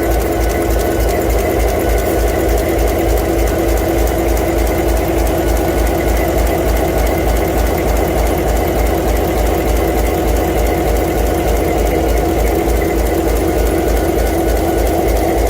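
V16 locomotive diesel engine running steadily, with an even, rapid low beat from its firing.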